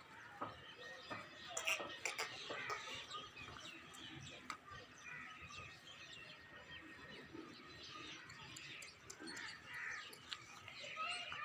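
Faint birds chirping, with many short calls scattered through, and occasional small clicks.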